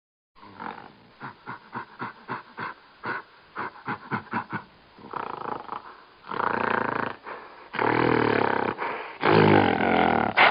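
An animal calling: a run of short, rhythmic grunting calls, then three longer, louder calls in the last few seconds.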